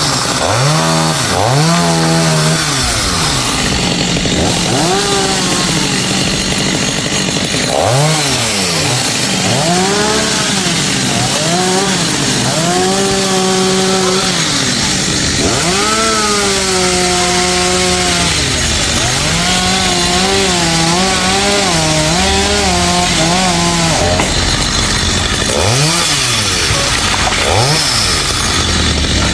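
Chainsaw engine revving up and down again and again, with stretches held at high speed as it cuts into the trunk of a rain tree.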